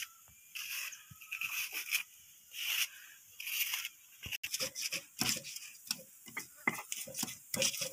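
Kitchen knife slicing through a large red onion held in the hand, a few crisp cuts. In the second half comes a quick run of short clicks and knocks.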